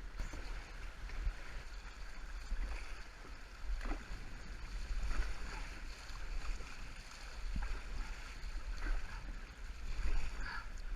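Canoe paddles dipping and pulling through river water, a stroke every second or so at uneven spacing, with wind rumbling on the microphone.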